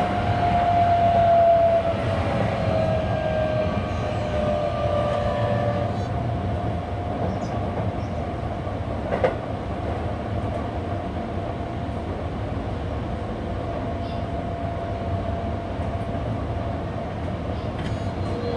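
Running noise inside a Keihan 7200 series electric train on the move: a steady rumble of wheels on rail with the traction motors' whine. The whine dips slightly in pitch over the first few seconds, then holds steady. There is a single sharp clack about nine seconds in.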